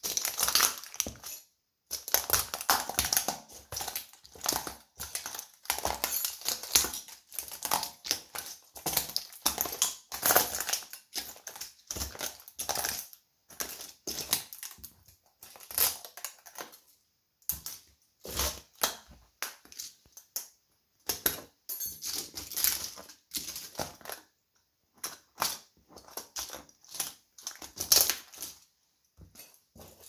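Plastic pieces of a toy train cracking, snapping and clattering under the rubber soles of Nike Air Force 1 sneakers as they are stepped and ground into the pile. The crunching comes in irregular bursts of rapid clicks, with a few short pauses.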